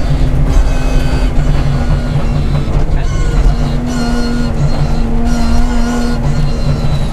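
BMW 325 Group A rally car's straight-six engine running hard under load, heard loud from inside the cabin, its note shifting slightly in pitch a few times.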